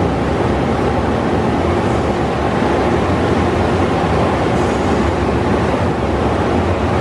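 Ryko SoftGloss MAXX rollover car wash gantry running: a steady machine hum with an even rushing wash noise as the top brush spins over the car.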